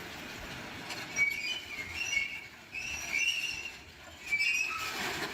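High-pitched metal-on-metal squealing from a working excavator, coming in several wavering squeals over a low steady rumble, starting about a second in.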